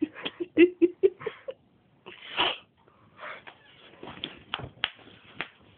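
A man's pained noises from a breath-freshener strip stinging his eye: a quick run of short strained grunts, then a sharp hissing breath about two seconds in, followed by scattered knocks and rustles as he moves about.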